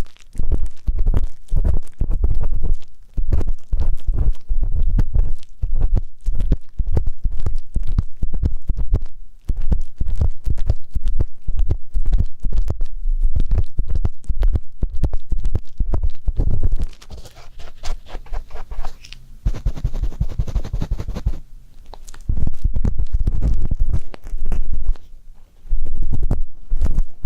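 Ear-cleaning ASMR: an ear pick scratching and rubbing right against a microphone, a fast, close run of scratches and muffled thumps, easing into a softer, hissier stretch a little past the middle.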